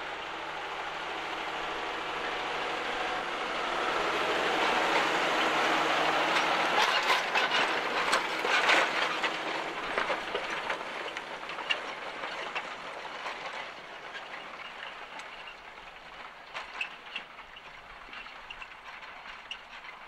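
John Deere 6150R tractor's six-cylinder diesel working under load as it pulls a four-furrow reversible plough, with the rush of turned soil and the plough clattering and clicking. It grows louder as the tractor and plough pass, loudest about eight seconds in, then fades.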